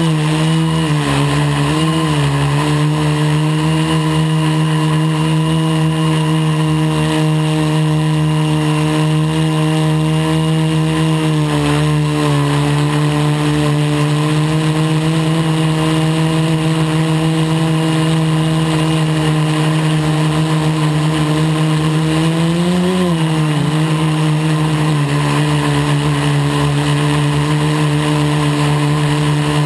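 Quadcopter's electric motors and propellers buzzing steadily in flight, heard up close from the camera mounted on the craft. The pitch wavers briefly a few times and rises and falls once about three quarters of the way through.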